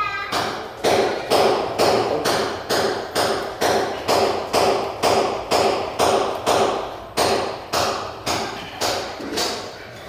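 Steady hammer-like knocking, about two blows a second, each with a short ringing tail.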